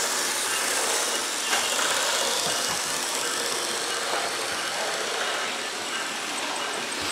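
HO scale model locomotive running: a steady mechanical whirring hiss with no deep rumble.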